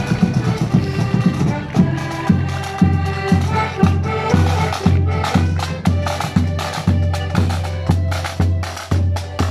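Accordion band playing a march: piano accordions carry the tune over a steady bass drum beat of about two strokes a second. Side drums with rapid strokes and rolls become prominent about halfway through as the drummers pass close.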